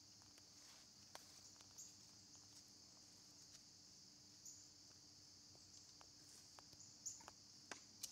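Faint, steady high-pitched chorus of insects, with a few light clicks scattered through it.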